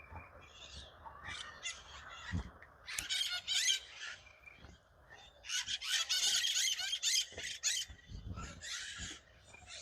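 Birds calling in dense bursts of high, rapid notes, loudest around three seconds in and again for about two seconds from the middle on.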